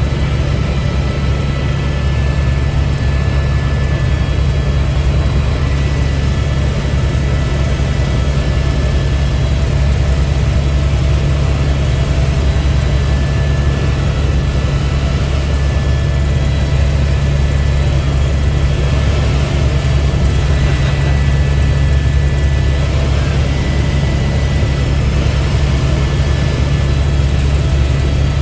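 Helicopter in flight, its engine and rotor making a loud, steady drone with a deep hum, as heard inside the cabin.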